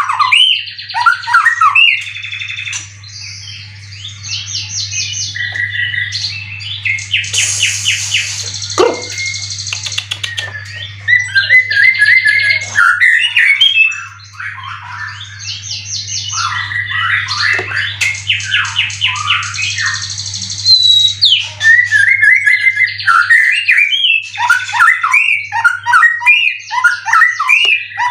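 White-rumped shama (murai batu) in full song: a long, varied run of loud whistled phrases broken by fast rattling trills. It is a competition bird in near-peak form, its repertoire full of cililin imitations.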